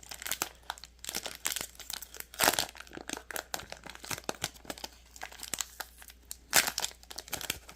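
Foil trading-card pack being torn open and crinkled by hand: irregular crackling and rustling, with two louder tears, about two and a half seconds in and near the end.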